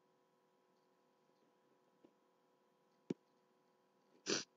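Quiet room tone with a faint steady hum. A single sharp click comes about three seconds in, and a short burst of noise lasting about a quarter second comes near the end.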